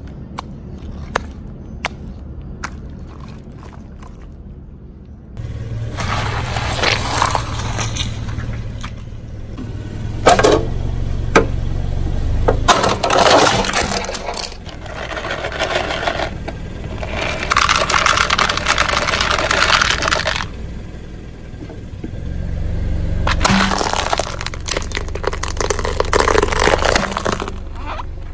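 For the first five seconds, faint squishing of a hand in spilled paint, with small clicks. Then a car tyre rolls slowly over concrete, crushing objects under it: a low rumble under repeated crackling, scraping and crunching, with a sharp crack about ten seconds in.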